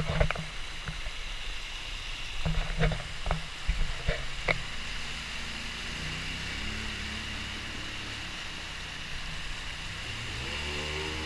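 An ATV's engine running as it drives up a rocky creek, over the steady rush of the stream's fast water. A few short knocks come in the first half.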